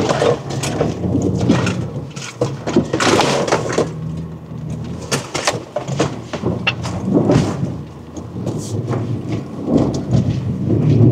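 A BMW SUV's engine runs under load as it drives into a muddy bog, with repeated splashes of mud and water and knocks and thuds against the body throughout.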